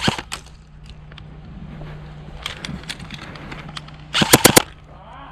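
Airsoft guns firing: a short burst right at the start, a few scattered shots in the middle, and a loud rapid burst of about six shots about four seconds in.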